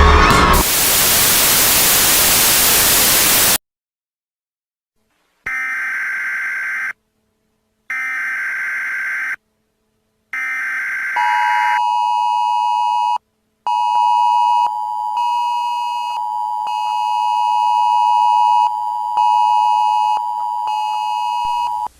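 Emergency Alert System broadcast tones: a burst of white-noise static, then three short bursts of SAME header data tones, each about a second and a half long. These are followed by the steady two-tone EAS attention signal, held for about ten seconds with one short break about two seconds in.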